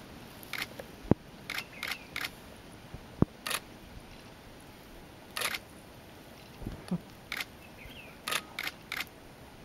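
Camera shutters firing in short clicks, about a dozen times at irregular intervals, some in quick pairs. There are also two sharp knocks in the first few seconds.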